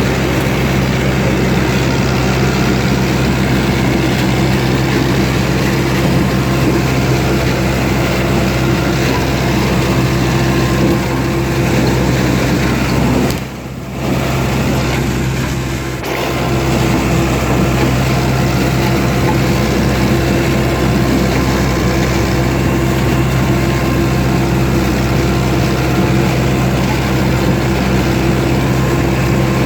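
Fiat 640 DT tractor's four-cylinder diesel running steadily while working a SIP Tornado 40 corn harvester, with a brief dip in level about halfway through.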